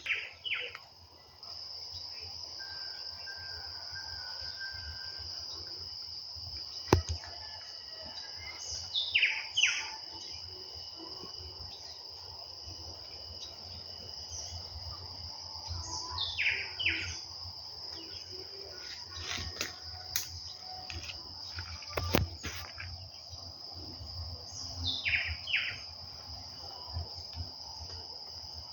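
Birds calling over a steady, high-pitched insect drone. Three times, a bird gives a call of two quick notes that fall steeply in pitch. A few sharp knocks break in briefly.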